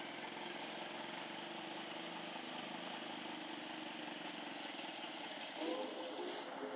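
Heavy wrecker truck's engine running steadily at low speed as it tows a dump truck. A brief louder sound with a few steady tones comes in about five and a half seconds in.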